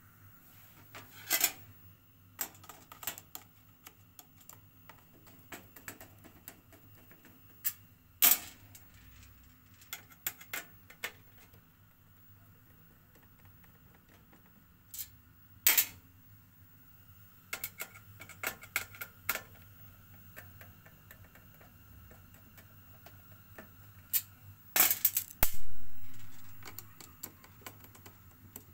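Scattered metallic clicks and clinks of a screwdriver working the screws out of a National NV-7500 VCR's sheet-metal bottom cover. A louder clatter with a short ringing tail comes near the end.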